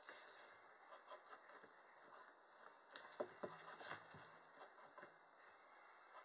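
Near silence with faint scratching of a drawing tool making short strokes, and a few louder taps and knocks about three to four seconds in.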